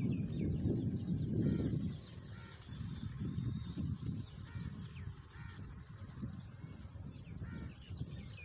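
Rural field ambience: a low rumbling noise, heaviest in the first two seconds, under a short high chirp repeating about two to three times a second and a few fainter bird calls.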